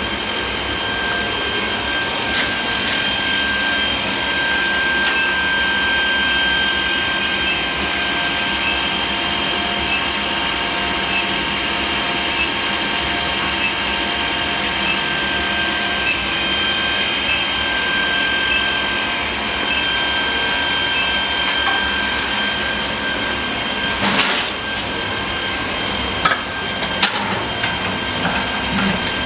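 Induction heater running steadily with a high, even whine over a fan-like hiss while it heats the end of the nail stock for the head. A few sharp knocks and clinks come near the end.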